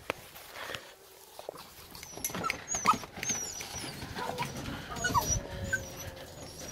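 Presa Canario puppies whimpering in short, high squeaky cries that begin about two seconds in. One louder cry comes near three seconds.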